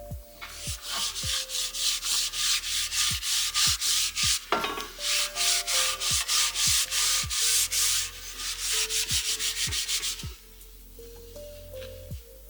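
A cloth is rubbed back and forth along a wooden shovel handle, working linseed oil into the wood. The quick scrubbing strokes come about three or four a second, with a brief pause partway through, and stop about ten seconds in.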